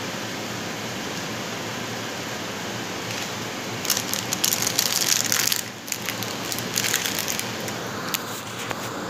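Steady whooshing of a noisy kitchen exhaust fan, with a loud crackling hiss about halfway through that lasts a couple of seconds and then tails off in a few crackles.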